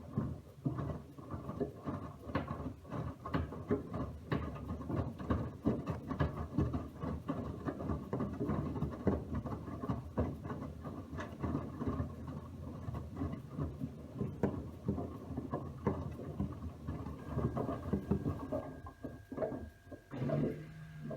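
Miele W1 front-loading washing machine turning its drum during a wash, with laundry tumbling in a dense run of irregular knocks and swishes. The sound starts abruptly and dies down about 19 seconds in, leaving a faint steady whine and a low hum.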